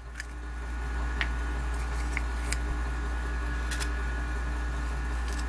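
Steady low electrical hum, with a few faint clicks and rustles as a plastic surprise capsule and the small printed packet inside it are handled.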